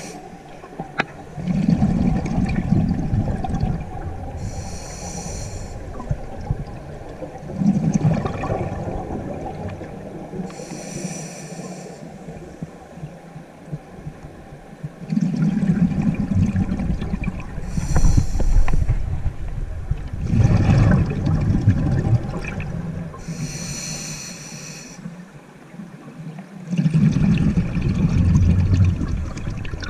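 Scuba diver breathing through a regulator underwater: a brief hiss on each inhale, then a louder burst of rumbling exhaust bubbles on the exhale, repeating in slow, even breaths about every six seconds.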